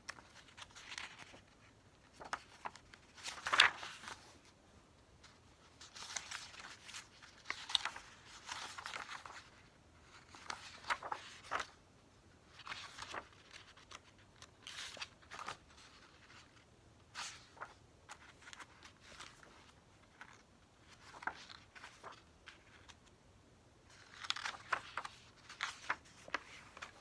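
Glossy pages of a photo book being turned one after another, each turn a short papery swish, every second or two, the loudest about three and a half seconds in and a quick run of them near the end.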